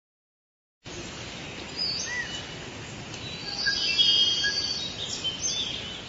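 Forest ambience: a steady hiss with scattered bird chirps and short whistles, starting about a second in and busiest around the middle.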